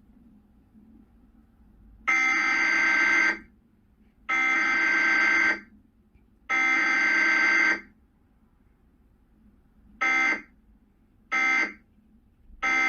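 Emergency Alert System SAME data bursts from a Cox Communications cable Required Weekly Test. Three header bursts, each about a second long, come a second apart. Then, near the end, three short end-of-message bursts follow in quicker succession.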